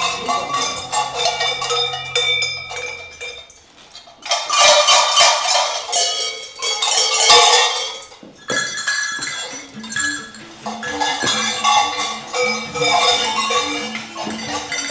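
Several large cowbells, the kind hung on Krampus costumes, clanging and jangling unevenly in loud bursts as they are shaken.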